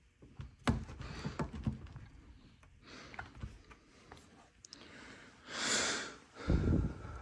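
Scattered light clicks and knocks of objects being handled, with a short noisy breath about three quarters of the way through and a dull low thump near the end.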